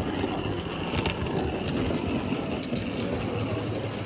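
OO gauge model locomotive running on the track: the small electric motor whirring with a steady low hum and a fine, continuous rattle of wheels and gears.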